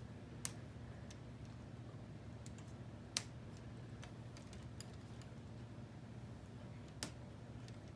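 Plastic K'nex pieces clicking as tower arms are handled and snapped onto connectors: a few sharp clicks, the clearest about half a second, three seconds and seven seconds in, with fainter taps between, over a faint steady hum.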